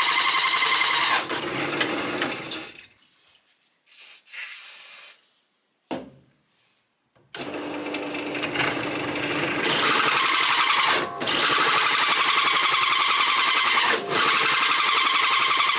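Power tool working a piece of steel plate being made into an exhaust flange. It runs loud and steady, stops about three seconds in, and starts again about seven seconds in.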